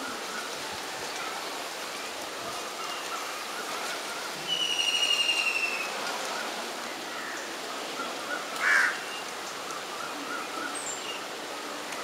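Black-rumped flameback giving one rattling, slightly falling call lasting just over a second, about four and a half seconds in, over a steady background hiss. A short harsh sound follows near the nine-second mark.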